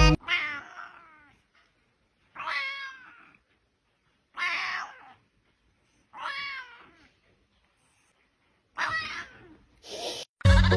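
A cat meowing repeatedly: about five meows, roughly two seconds apart, each rising and then falling in pitch.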